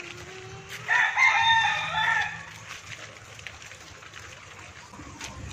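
A rooster crows once: a loud call of about a second and a half, starting about a second in.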